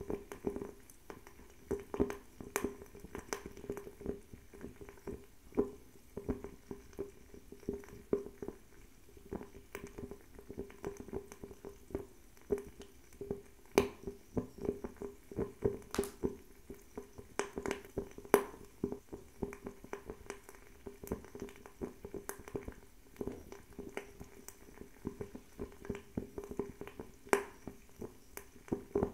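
Fire crackling: irregular sharp snaps and pops, several a second, some louder than others, over a soft steady sound of the flame.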